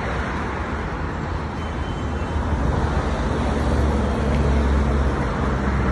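Road traffic noise: a steady rumble of passing cars, getting louder about four seconds in.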